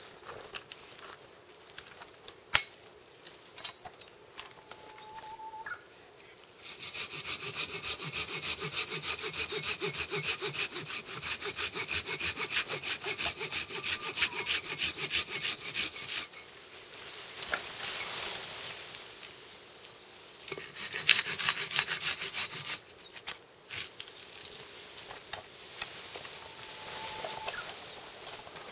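Silky BIGBOY2000 folding pull saw cutting through a small pine trunk in quick, regular strokes. The cutting starts about seven seconds in and runs for roughly nine seconds, pauses, then picks up again briefly for a second burst before stopping.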